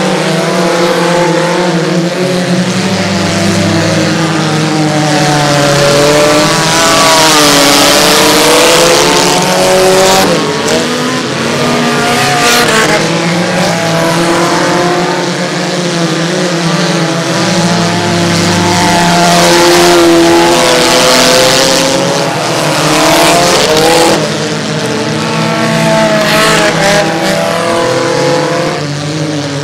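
Engines of several compact demolition-derby cars running and revving on a dirt track, their pitches rising and falling as they accelerate and slow, with a few sharp knocks.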